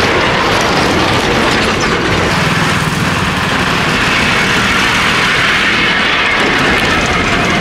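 A diesel bus's engine running as the bus drives past close by on a gravel dirt road, with tyre and road noise in a loud, steady roar.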